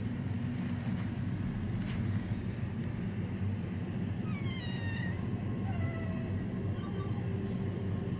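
Young street cats meowing: two or three falling meows about halfway through and a short higher one near the end, over a steady low rumble.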